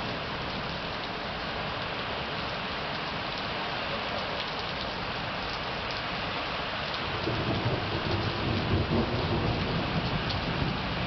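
Rain falling steadily with faint drop ticks. From about seven seconds in, a roll of thunder rumbles low for a few seconds and dies away near the end.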